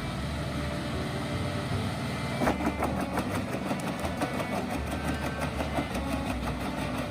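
Tractor-driven PTO wood chipper running with a steady engine drone, joined by a rapid rattle of knocks from about two and a half seconds in.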